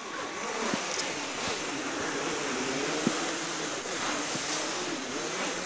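Wind blowing hard across the camera microphone: a steady rushing noise, with a couple of faint knocks about one and three seconds in.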